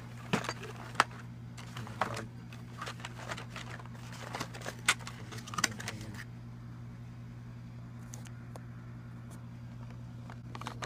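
Cardboard box and packaging being handled and pulled open: scattered rustles, scrapes and light taps for about six seconds, then only a steady low hum.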